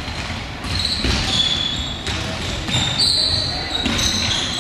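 Indoor football shoes squeaking on a sports-hall floor during play: several short, high squeaks at slightly different pitches, over knocks of the ball and feet and players' calls in the hall.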